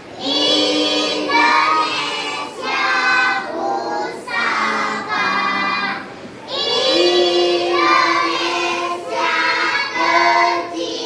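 A class of young children singing a song together in chorus, phrase after phrase of held notes, with a short break about six seconds in.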